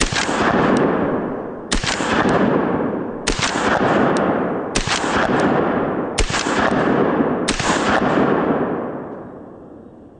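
Six shots from a Dawson Precision limited-edition Staccato P 9mm 2011 pistol with a muzzle brake, fired at an even pace about a second and a half apart. Each shot has a long echoing tail that fades before the next, and the last tail dies away over the final couple of seconds.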